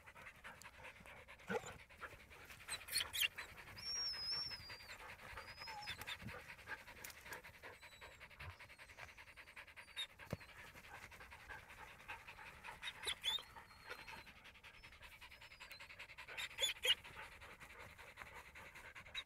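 Mixed-breed dog panting fast and steadily with its head pushed into an armadillo burrow, with a few brief rustles and knocks of twigs and dirt.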